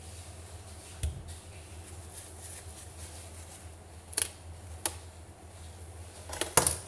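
Plastic blender jar and kitchen utensils being handled on a counter: a handful of short clicks and knocks, about a second in, twice around the middle and twice close together near the end, over a low steady hum.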